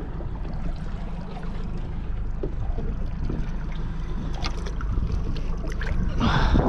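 Steady low rumble of a small boat at sea, with a few faint clicks midway and a short rush of noise near the end.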